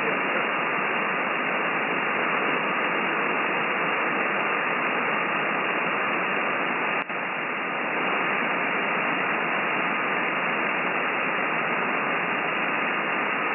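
Band noise from a FLEX-1500 software-defined transceiver receiving single-sideband with no station transmitting: a steady static hiss held to the narrow speech passband, with a faint steady whistle from a carrier. About halfway through there is a click and the hiss dips briefly.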